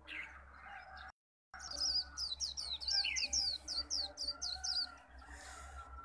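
White-eye (khuyên) singing a fast run of high, sharply falling chirps, about four a second for some three seconds, after a brief dropout to silence about a second in.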